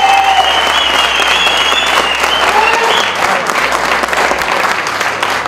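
A crowd applauding steadily. For about the first three seconds a high held tone carries over the clapping.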